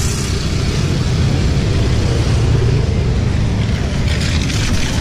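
A motor vehicle's engine running close by on the road, a steady low rumble with road noise.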